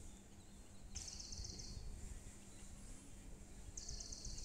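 Faint outdoor background with a low rumble, and two short, high, rapidly pulsed trills about three seconds apart.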